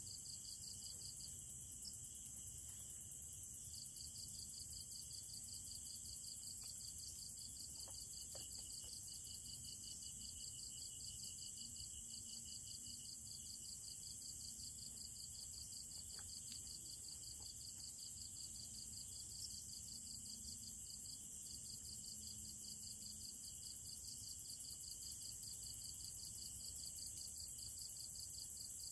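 Night insects chirping in a steady chorus: a fast, even high trill over a thin high hiss of other insects, with a second, lower trill joining for a few seconds midway. A couple of faint clicks are heard.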